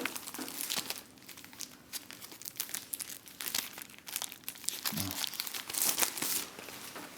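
Packaging crinkling and crackling irregularly as it is handled and opened, pulled from the corner of a keyboard box.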